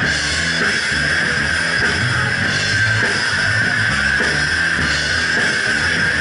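Live rock band playing loudly and steadily: distorted electric guitar, bass guitar and a Ludwig Vistalite acrylic drum kit.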